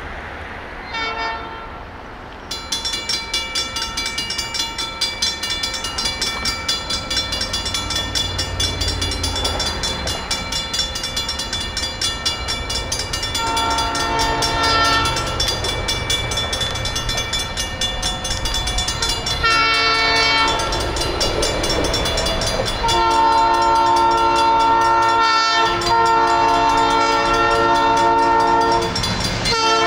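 Railroad crossing warning bell ringing rapidly and continuously. Over it, the horn of the approaching train's lead locomotive, NVRR 52 (a 65-ton locomotive), sounds four blasts for the crossing, getting louder, with the last two long and nearly back to back.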